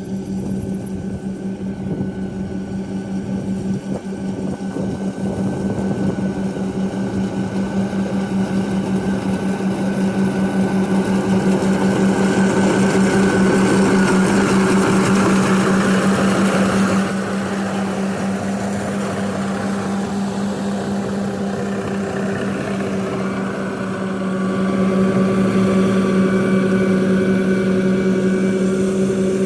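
Rice combine harvester running with a steady, droning hum that grows louder over the first several seconds. It drops in level suddenly past the middle and swells again near the end.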